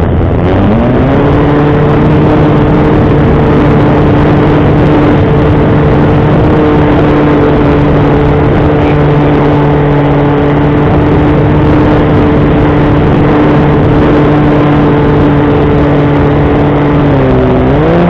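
Bixler 3 RC plane's electric motor and pusher propeller whining at steady throttle, heard close up from the airframe over a heavy rush of wind. The pitch climbs as the throttle comes up about a second in, holds level, then dips briefly and rises again near the end.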